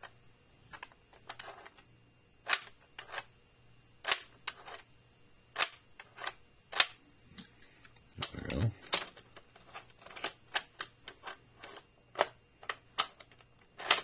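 Irregular plastic clicks and clacks from a Matchbox Action Drivers Auto Shop toy playset being worked by hand, as a diecast pickup truck is rolled over its trigger and the spring-loaded mechanic figure snaps forward and back.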